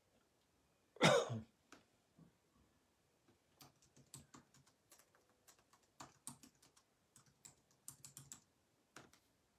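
Irregular clicking of typing on a computer keyboard, with one short, louder burst of noise about a second in.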